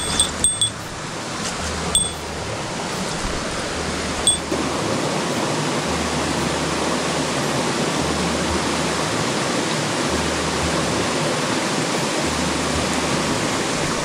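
Mountain stream rushing steadily, a continuous hiss of running water, with a few small clicks in the first few seconds.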